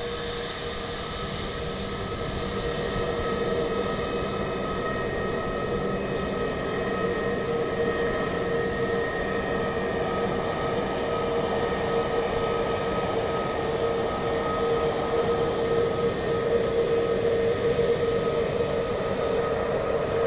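Airbus A320neo's twin jet engines at taxi idle: a steady hum with a few held whining tones, growing gradually louder as the airliner taxis closer.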